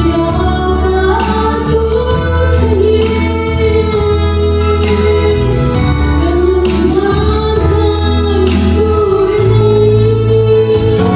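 A woman singing a Mizo gospel song into a microphone with long held notes, over an accompaniment of sustained bass notes.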